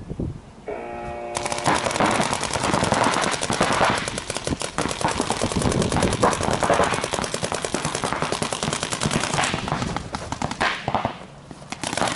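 Paintball markers firing in dense, rapid strings from several players at once, the shots overlapping into a continuous rattle that thins out near the end. A brief tone sounds about a second in, just before the firing starts.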